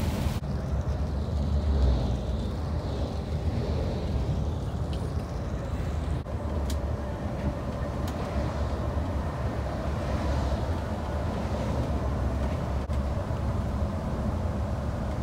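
Coach bus driving on a wet road, heard from inside the cabin: a steady low rumble of engine and tyres, with a few faint clicks.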